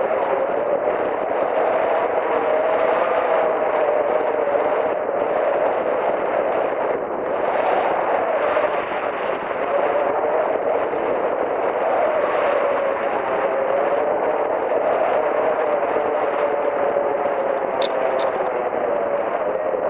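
Wind rushing over the microphone of a camera on a hang glider in flight, a steady loud rush with a wavering whistle running through it. A couple of light ticks come near the end.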